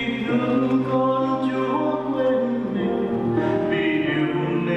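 A mixed choir singing in harmony, holding long chords that shift to new pitches every second or two.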